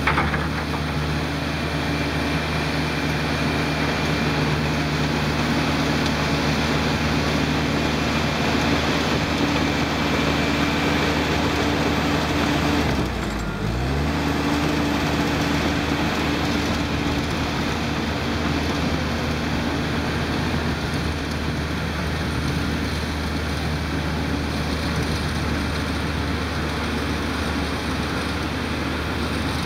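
Diesel engines of a Volvo EC210 excavator and a Komatsu crawler dozer running steadily while working. About halfway through, the engine note briefly drops and comes back up.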